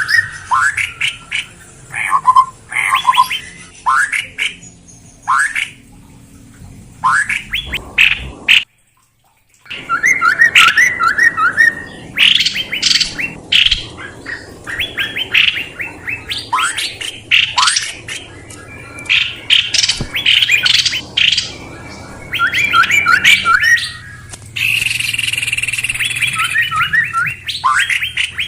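Recorded songbird lure call: quick trains of sharp chirping notes, repeated over and over, broken by about a second of dead silence around nine seconds in.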